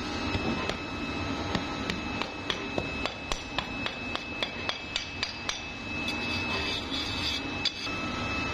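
Quick, evenly spaced knocks, about three a second, struck on metal over a steady high machine whine. The knocks stop a little past halfway, leaving rougher machine noise and one last louder knock near the end.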